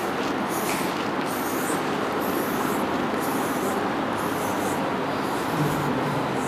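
Chalk writing numbers on a blackboard in a series of short scratchy strokes, over a steady rushing background noise.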